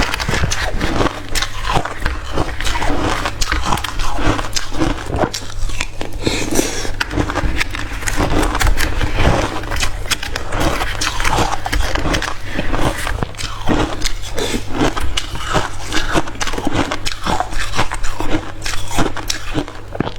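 A person chewing mouthfuls of hard crushed ice close to the microphone: dense, irregular crunching and crackling with no pause.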